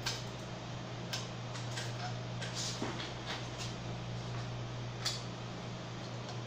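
Scattered light clicks and taps from printer parts being handled during disassembly, irregular and roughly a second apart, over a steady low hum.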